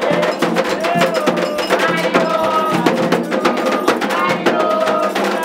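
Candomblé ritual music for the orixá Oya: atabaque hand drums and a metal agogô bell play a fast, dense rhythm, with voices singing over them.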